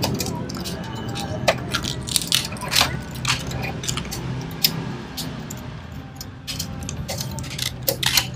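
A hand tool scraping and tapping along the metal window-regulator rail inside a 1980 Toyota Corolla DX door, digging out greasy dirt and rust: a string of irregular sharp clicks and scratches.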